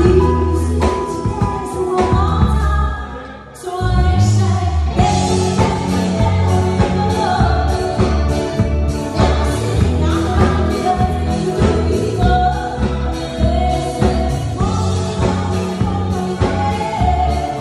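A woman singing a pop song with a live band of electric guitar, keyboard and drums over a steady beat. The band drops out briefly about three seconds in, then comes back in.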